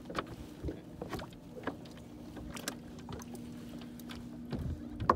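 Light plastic-and-metal clicks and knocks of a Feelfree Overdrive spring-loaded kayak pedal drive being unlocked and pulled up into its raised position, with a faint steady hum underneath.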